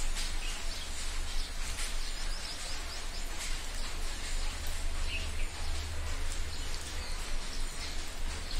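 A person eating rice by hand from a steel plate: fingers squishing and mixing rice against the plate, with chewing and mouth smacks heard as small scattered clicks, over a steady low hum.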